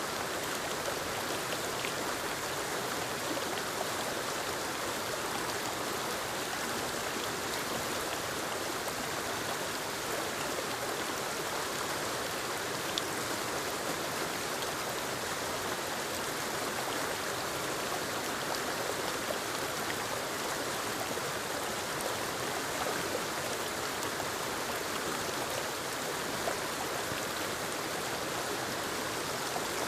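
Forest waterfall and stream running: a steady, even rush of falling and flowing water.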